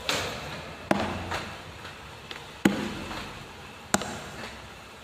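Four sharp knocks, about a second and a half apart, each with a short ringing tail, over a faint low hum.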